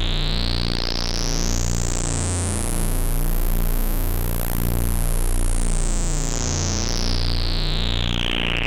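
GS-101 synthesizer holding a low sustained drone from its three oscillators, whose low tones swell and fade slowly in a regular beat. The filter cutoff sweeps slowly up to full brightness over the first few seconds, stays open, then closes back down near the end.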